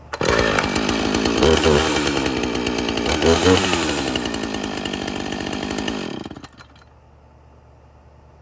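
Two-stroke chainsaw engine starting up suddenly, revved twice in quick blips, then settling lower and shut off about six seconds in.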